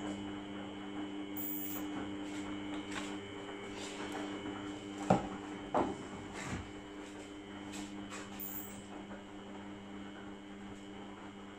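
An appliance motor running with a steady, even hum, with a few sharp knocks about five and six seconds in.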